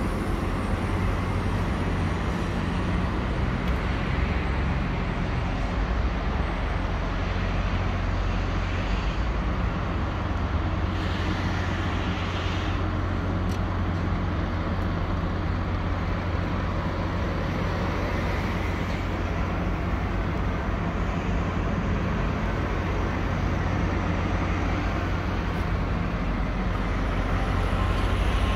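Scania 770S truck's 16.4-litre V8 diesel idling steadily, a deep even rumble.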